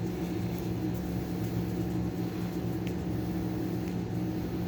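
A steady low mechanical hum of a running machine, holding an even pitch throughout, with a faint tick about three seconds in.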